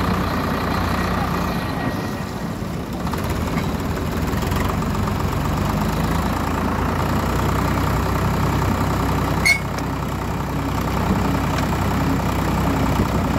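Engine of a boat-hauling winch running steadily under load as it drags a fishing boat up the beach by rope, with one sharp click about nine and a half seconds in.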